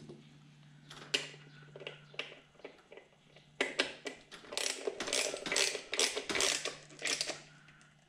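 Hand ratchet clicking as the bolts of an L98 V8's upper intake plenum are tightened. A few scattered clicks come first, then about halfway in a quick, steady run of ratcheting at several clicks a second.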